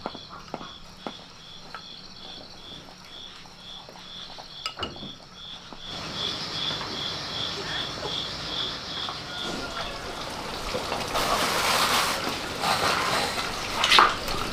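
An insect chirping steadily in an even high-pitched pulse, about two to three chirps a second, until about ten seconds in. Over the first few seconds come light clicks of chopsticks against a bowl. Later the background rises into a hiss, with a few sharp clicks near the end.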